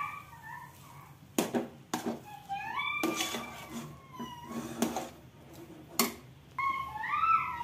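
A steel spoon knocks and scrapes against a nonstick pan while stirring thick dough, giving sharp clicks every second or so. A cat meows three times, with drawn-out rising and falling calls, the longest about a second and a half.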